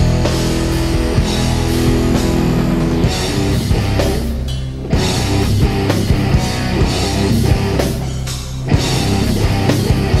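Live rock band playing: electric guitars, drums and keyboard. The music thins briefly twice, about halfway through and again about two-thirds through, and each time the full band comes back in with a drum hit.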